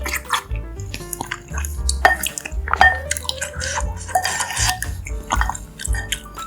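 Close-up wet eating sounds, chewing and mouth smacks with a few sharp clicks, over background music with a steady bass beat.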